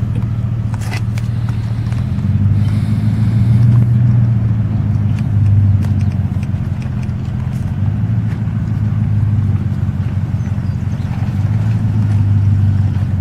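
A motor vehicle running: a steady low drone that swells and eases several times, with a few faint clicks about a second in.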